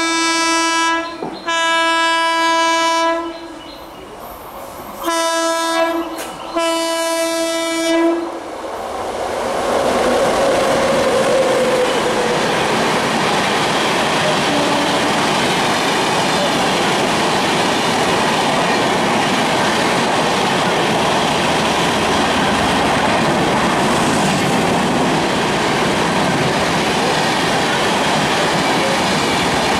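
WAP-7 electric locomotive's horn sounds four blasts, in two pairs, each about one to two seconds long and held at one pitch. Then a passenger train passes at speed: a loud, steady rush of wheel and rail noise.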